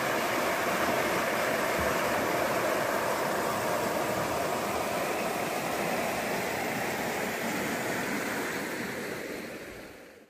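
Shallow stream running fast over stones below culvert pipes, a steady rush of water that fades out near the end.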